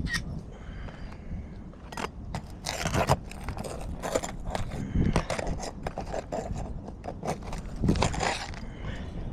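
Asphalt shingles being pried up with a roof snake shingle remover: a run of irregular scraping and crackling strokes as the bar is worked under the shingles to loosen their nails.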